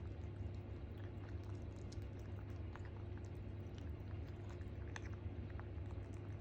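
A ragamuffin kitten eating: small irregular clicks and smacks of chewing over a steady low hum.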